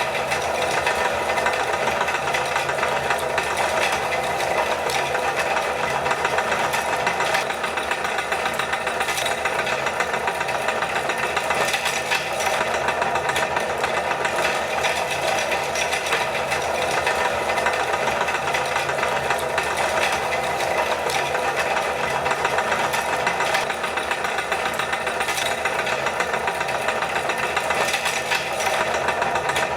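Electric meat grinder running steadily, its motor humming evenly while it grinds milk candy chocolate.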